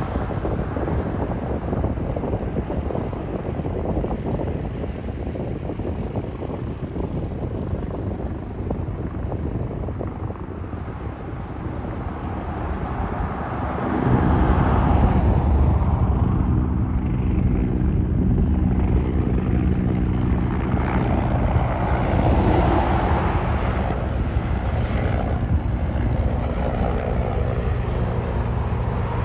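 Bell 412 twin-turbine helicopter flying in to land, its four-blade rotor and turbines sounding. At first it is distant and washy; about halfway through it jumps louder to a steady drone with an even hum.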